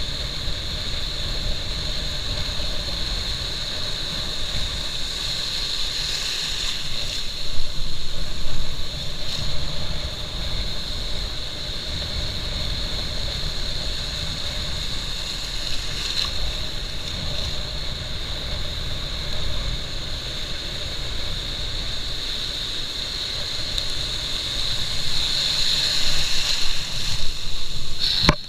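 Strong wind buffeting the microphone, a steady rumble under a constant high-pitched hiss, with louder gusts about seven seconds in and again near the end.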